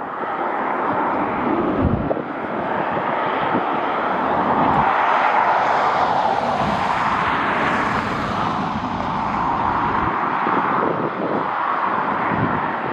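Jet airliner passing close by. Its engine roar swells to a peak, brightest about seven seconds in, then eases off, while gusts of wind buffet the microphone.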